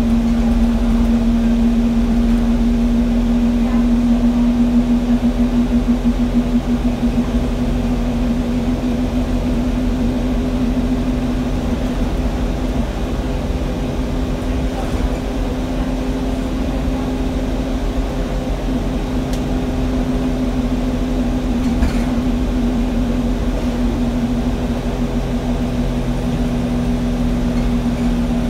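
Alexander Dennis Enviro200 single-deck bus heard from inside the saloon while under way: diesel engine and road rumble under a loud, steady whine from the engine cooling fan.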